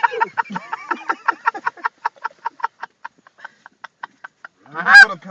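Wounded Canada goose being choked by hand, giving a rapid run of short clucking calls, about five a second, that grow fainter, then a loud honk near the end.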